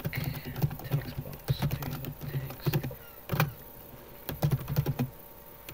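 Typing on a computer keyboard: a run of quick key clicks in short bursts, over a low hum that comes and goes.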